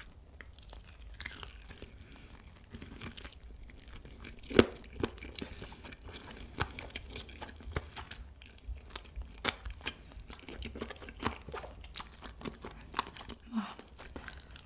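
Close-up chewing of crispy fried chicken, with many short, sharp crunches as it is bitten and chewed. The loudest crunch comes about four and a half seconds in.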